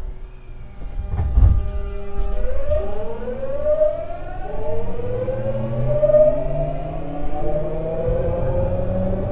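Tokyu 9000 series train's Hitachi early GTO-VVVF inverter and traction motors starting off from a stop, heard inside the car: after a thump about a second and a half in, a whine of several tones rises steadily in pitch, jumping in steps as the inverter changes modulation.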